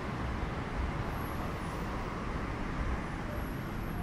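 Road traffic: a steady hum of passing cars along a city road.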